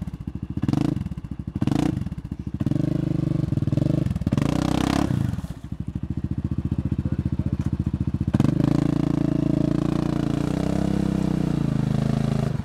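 Yamaha Grizzly 700 ATV's single-cylinder engine revved in short bursts while stuck in a mud hole, then held at high revs with the tyres spinning in the mud. The revs drop about six seconds in, then jump back up loudly about eight seconds in and stay high as it pushes through the mud.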